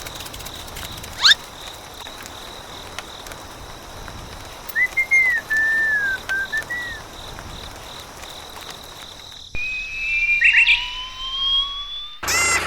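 Whistle-like sounds: a quick upward zip, then a short run of chirpy whistled notes, and near the end long slowly rising whistle tones.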